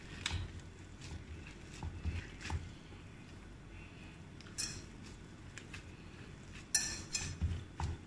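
Gloved hands pressing and spreading raw beef mince over an oiled sizzling plate: soft pats and glove rustles with a few small clicks, a busier cluster near the end.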